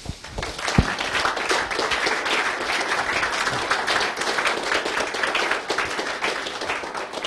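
Audience applauding at the end of a talk: a steady wash of many hands clapping that fades out near the end.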